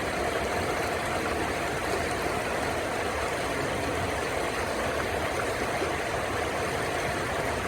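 River water flowing steadily, a constant even rush with no breaks.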